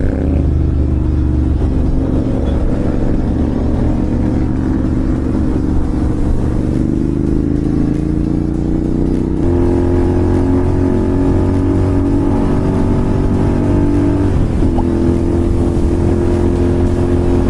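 Royal Enfield Continental GT 650's parallel-twin engine through an SS Moto slip-on exhaust, running under way with the revs slowly climbing. The engine note changes abruptly about halfway through and dips briefly near the end, as with gear changes.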